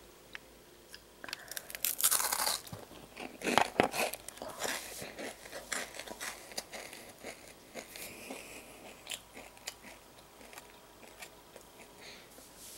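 Crunchy Triscuit woven wheat crackers being bitten and chewed: two loud crunching bites about two and three and a half seconds in, then a run of smaller crunches as they are chewed.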